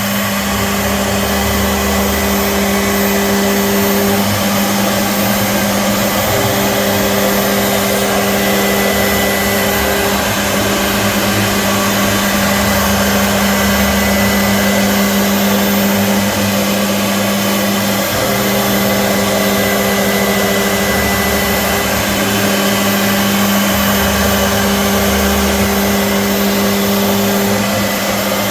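CNC machine running steadily, its motor giving a constant hum. A higher tone cuts in and out every few seconds as the machine moves.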